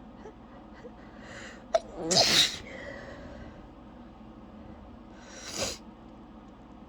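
A woman sneezing during a sneezing fit she cannot stop. There is a quick in-breath, then one loud sneeze about two seconds in. A few seconds later comes a second, quieter burst of breath.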